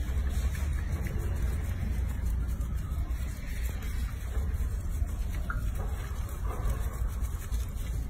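A steady low rumble, with faint sloshing and rubbing of soapy water as hands wash a wet baby macaque in a sink.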